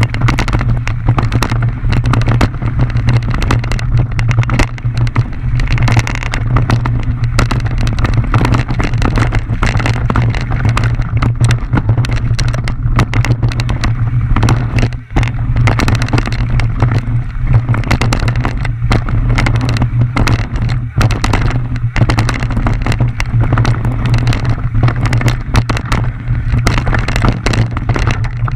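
Mountain bike descending rough trail: a steady low wind rumble on the microphone under a constant stream of rattles, clicks and knocks from the bike over rocks and roots, with a brief lull about halfway.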